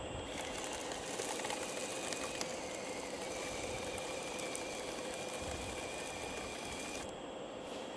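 Remote-controlled scale hydraulic excavator running: a steady small-motor whine with a high hiss that stops about seven seconds in.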